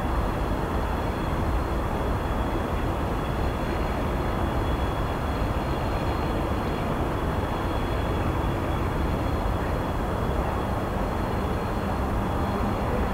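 Steady outdoor rumble and hiss across a railway yard, with no distinct events, and a faint high steady tone above it.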